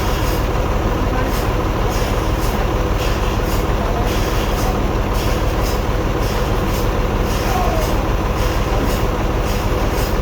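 Sawmill machinery running steadily with a constant low engine drone.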